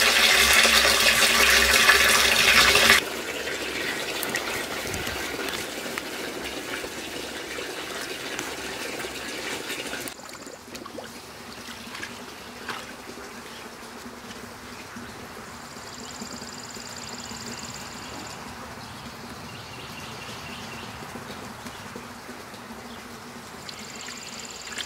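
Water gushing from a PVC pipe into a plastic barrel, loud for about three seconds, then softer until about ten seconds in. After that only a low background remains, with faint high steady tones coming and going.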